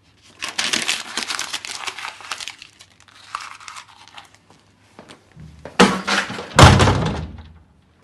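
Paper being handled, rustling and crumpling for the first couple of seconds and faintly after. Then two loud thuds close together about six seconds in.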